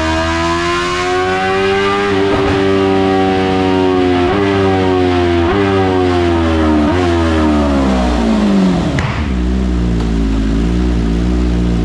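BMW S1000RR superbike's race-built inline-four engine on a chassis dyno at the end of a full-throttle pull: the revs climb for about two seconds, then fall away with three short rev blips, dropping to a steady idle about nine seconds in.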